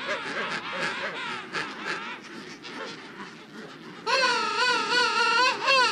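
Emperor penguin colony calling: many overlapping calls with wavering pitch, then from about four seconds in one loud wavering call, close by, lasting nearly two seconds.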